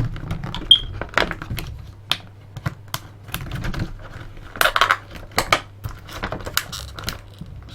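Irregular small plastic clicks, taps and crinkles as a plastic action figure and its packaging are handled, with a denser run of clicks a little past halfway.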